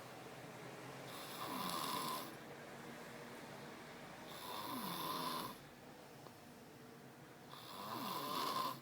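Snoring: three long, drawn-out snores about three seconds apart, each swelling and then dropping off, quieter in between.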